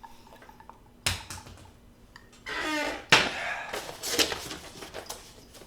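A man taking a drink: a knock as the drink is picked up, a breathy exhale after swallowing, then a sharp knock as the drink is set down on the table, followed by light rustling.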